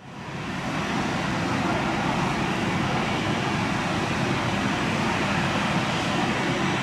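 Airbus A320 on final approach, its jet engines making a steady rushing rumble that fades in over the first second and then holds level.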